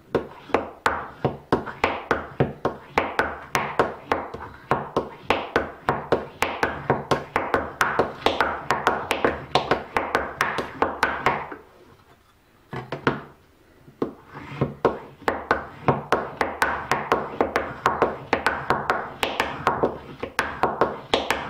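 Steel burnisher drawn quickly and repeatedly along the edge of a cabinet scraper to raise a burr, about three strokes a second, each a short scrape with a sharp tick. There is a brief pause a little past the middle.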